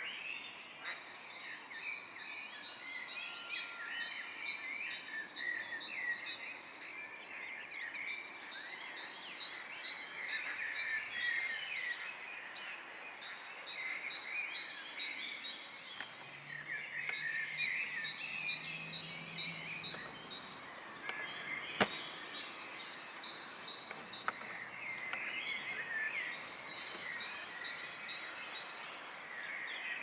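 Dawn chorus of many songbirds: overlapping chirps and warbles, with one bird repeating runs of quick, evenly spaced high notes. A single sharp click sounds a little past the middle.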